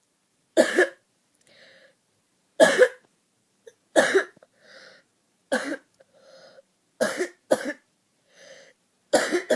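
A woman coughing in a fit, a series of harsh single and double coughs every second or two, each followed by a quieter breath drawn in.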